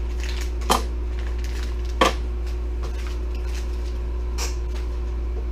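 Small metal extruder feeder parts being unwrapped by hand: light rustling of packaging and two sharp clacks, just under a second in and again at about two seconds, as the parts meet the table, over a steady low hum.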